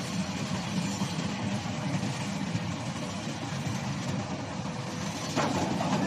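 Steady hum and noise of industrial machinery running, with a faint steady tone above it. About five and a half seconds in there is a brief louder burst of noise.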